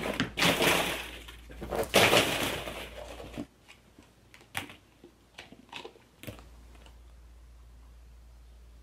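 Hollow plastic ball-pit balls clattering and rustling against one another as a dog churns through the pit. After about three and a half seconds this gives way to sparse light clicks and taps of single balls knocking together.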